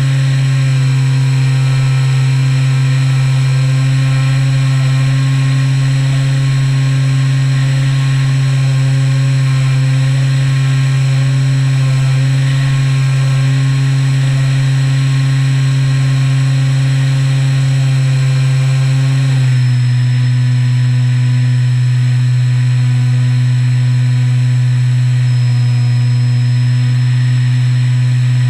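Electric motor and propeller of a 1900 mm Skywalker RC plane droning steadily under power, dropping to a lower pitch about two-thirds of the way through as the throttle is eased.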